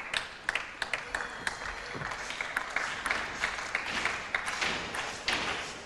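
Spectators clapping, scattered single claps that thicken into fuller applause about two seconds in, then thin out again near the end.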